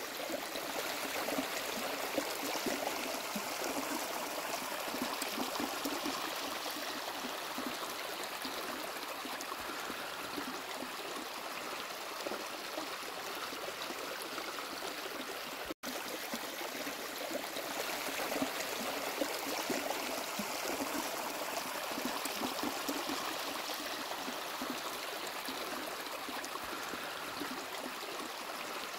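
Snowmelt mountain stream rushing and splashing over rocks, a steady rush of water with a momentary break about halfway through.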